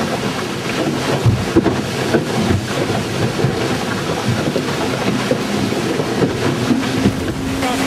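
Wind buffeting the microphone and water and spray rushing past the hull of a CATRI 24 hydrofoil trimaran sailing at about 15 knots, with a few dull knocks in the first few seconds.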